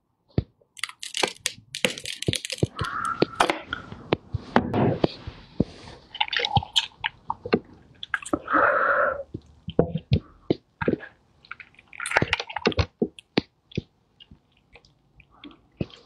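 Gloved hands tearing apart a whole steamed chicken: wet tearing and squelching of skin and meat, mixed with crinkling of thin plastic gloves, in many sharp clicks and short rustling bursts. It grows quieter near the end.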